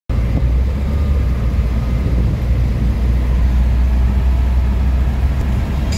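Steady in-cabin noise of a car cruising on a highway at about 85 km/h, engine near 2,000 rpm: a constant low rumble of engine and tyres on the road.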